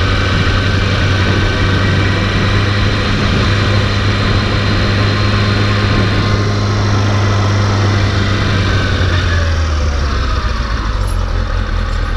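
Kawasaki Ninja motorcycle engine running at a steady cruise, its note dropping about ten seconds in as the bike slows down.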